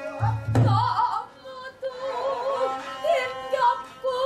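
A woman singing in pansori style, holding long wavering notes, over traditional Korean instrumental accompaniment. A couple of low thumps sound about half a second in.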